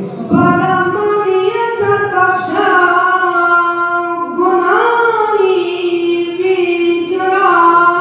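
A man singing solo into a microphone in a high voice, holding long notes and sliding between pitches, with no instruments.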